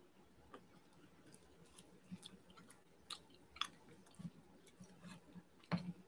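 Knife slicing through cooked chicken breast on a wooden cutting board, with faint scattered taps of the blade meeting the board; the sharpest taps come about three seconds in and near the end.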